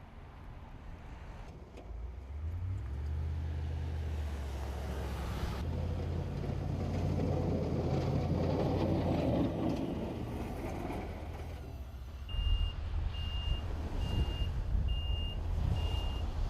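Vehicle engines running on a road, with one vehicle passing and its tyre noise swelling and fading in the middle. About twelve seconds in, a truck's reversing alarm starts beeping steadily, five high beeps a little under a second apart.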